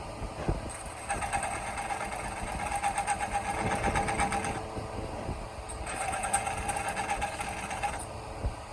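A small motor running in two bursts, the first about three and a half seconds long and the second about two, with a fast, steady mechanical buzz at an unchanging pitch.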